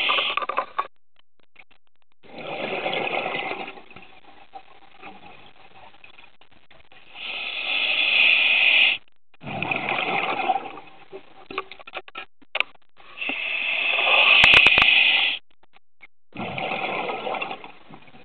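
Scuba diver breathing through a regulator underwater: hissing inhalations and bubbly exhalations in alternating bursts of a second or two, roughly one breath every five seconds. A quick run of clicks comes about two-thirds of the way in.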